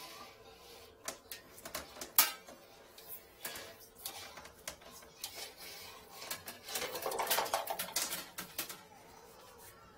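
Scattered clicks, taps and light rattles as a drain inspection camera's yellow push cable is handled and pulled past its open hard case, with a denser stretch of rattling and rustling about seven to eight and a half seconds in.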